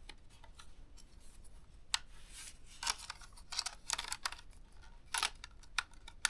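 Scattered sharp clicks and short scrapes of ThinkPad T430 laptop parts being handled and pressed into place, thickest a few seconds in.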